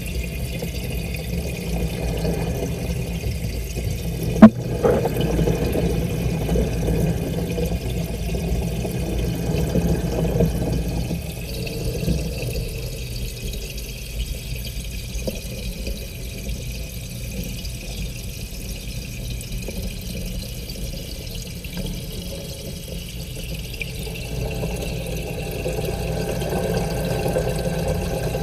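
Steady, muffled bubbling and rushing of an aquarium's aeration, heard underwater inside the tank. One sharp knock comes about four and a half seconds in.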